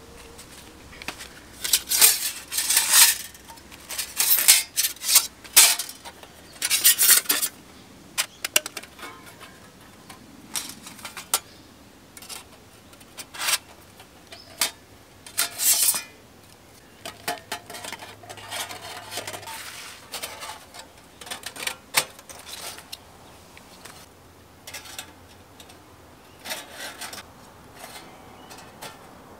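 Metal cooking utensils and cookware being handled: irregular clinks, knocks and short scrapes, busiest in the first third and again about halfway through.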